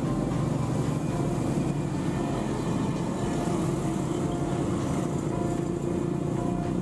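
Boeing 737-500's CFM56 jet engines at takeoff thrust as the airliner lifts off and climbs away: a steady, even engine noise, heaviest in the low range.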